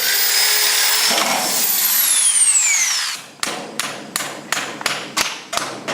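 Hammer drill boring into concrete for anchor bolts, its high whine falling away as the motor winds down about three seconds in. Then a quick, even run of about ten sharp knocks, roughly four a second.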